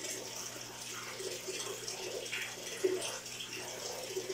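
Steady trickle of running water in a turtle tank, with small irregular splashes and drips, and one short louder sound just before three seconds in.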